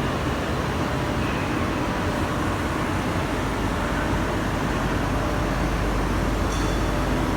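Steady mechanical running noise, an even rush with a low hum, from a Bodor P3015A fiber laser cutting machine at work.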